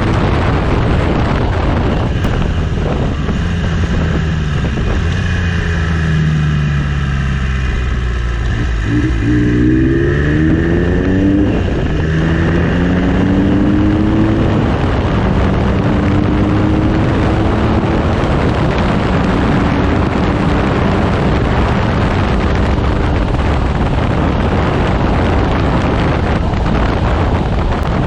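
Triumph Trident T150V three-cylinder engine with a 3-into-1 exhaust under way. The engine note falls for several seconds, then climbs in a run of short rises as the bike accelerates up through the gears, with heavy wind noise on the microphone throughout.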